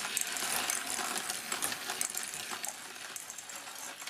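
Quarter-inch steel balls rolling and clicking along the 3D-printed plastic tracks of a small marble machine, a rapid, irregular patter of small metallic clicks and rattles.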